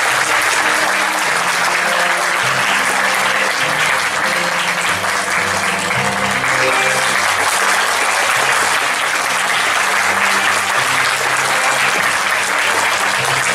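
Sustained applause from a hall audience and the cast on stage, steady throughout, over background music with a low line of held notes changing every half second or so.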